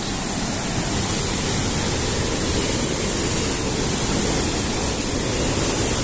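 Waterfall: the steady rush of falling water.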